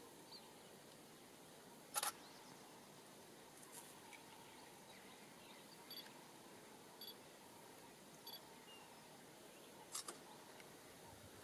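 Near silence: faint outdoor hiss broken by a few short, sharp clicks, the two loudest about two seconds in and near the end.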